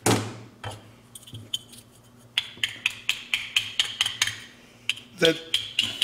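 Plastic automotive wiring-harness connector halves clicking and knocking against each other in the hands. A sharp knock at the start, then a quick run of light clicks, about four a second, from around two seconds in.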